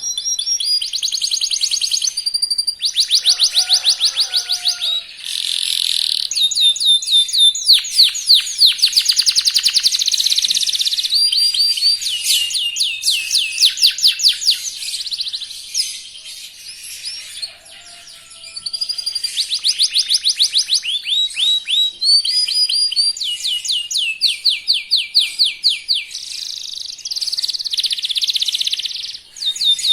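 Young canary singing a fast, continuous song of rapid repeated trills and rolls, switching phrases every second or two, with a short lull in the middle.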